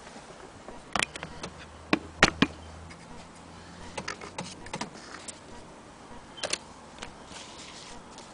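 Antique Willcox & Gibbs sewing machine being handled: irregular clicks and knocks of its parts, the loudest a pair about two seconds in.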